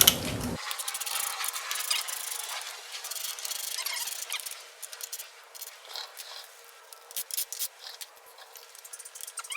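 Sheet-metal engine cooling tins on a Type 4 VW engine being worked loose by hand: irregular light clicks, scrapes and squeaks of thin metal, busier in the first half and thinning to scattered clicks later.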